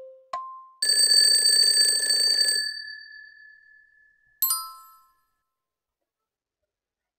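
Quiz countdown-timer sound effects: the last two tick-tock ticks, alternating low and high, then an alarm bell ringing for about two seconds as time runs out, one tone lingering and fading after it. About four and a half seconds in, a short bright chime.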